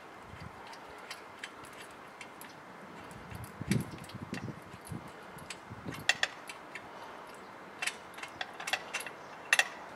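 Socket wrench ratchet clicking lightly in short, irregular runs while an already-loosened bolt is unscrewed from a motorcycle frame, with a few soft knocks around the middle.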